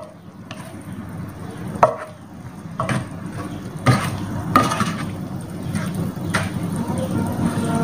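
A spatula stirring and tossing chicken, shrimp and vegetables in a square nonstick pan, with several sharp scrapes and knocks against the pan over a steady low hum.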